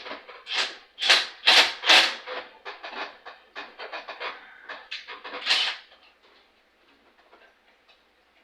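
Socket ratchet clicking in a run of quick rasping strokes, apparently tightening the carburetor mounting bolts. The loudest strokes come about twice a second early on, with faster lighter clicking after, and it stops about six seconds in.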